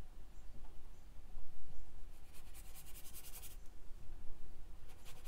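Watercolor brush scrubbing paint across vellum-surface mixed-media paper, a scratchy brushing in two stretches: one from about two seconds in lasting over a second, another starting near the end.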